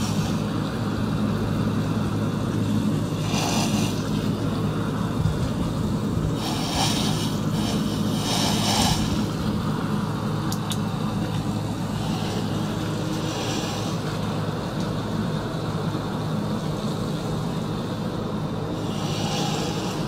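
Small circulation pump running with a steady low hum, pushing water through tubing into a tank. Every few seconds comes a short burst of hiss, as liquid and air are drawn through the pump in turn.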